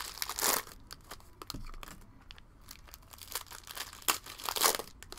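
Cellophane wrapper of a basketball card cello pack being torn open and crinkled by hand, with louder rips about half a second in and near the end and a sharp snap just before the last one.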